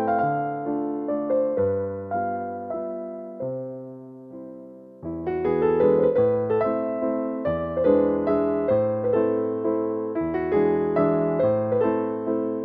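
Background piano music: a gentle melody of struck, fading notes over a bass line. It thins out and fades about four seconds in, then picks up again, fuller, about five seconds in.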